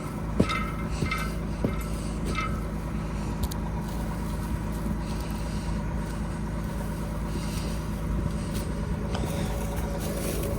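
Large farm tractor's diesel engine running steadily at a constant speed, with a few faint clicks in the first couple of seconds.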